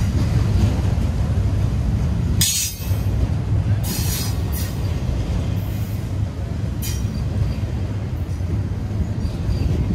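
Norfolk Southern freight train rolling past on street-running track with a steady low rumble, its wheels squealing in about five short, high bursts over the middle of the stretch.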